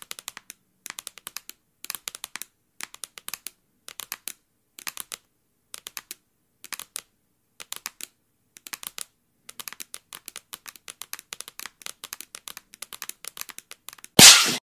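Fingers drumming on a wooden tabletop: quick clusters of light taps about once a second, growing busier towards the end. Just before the end comes one sudden, much louder noise.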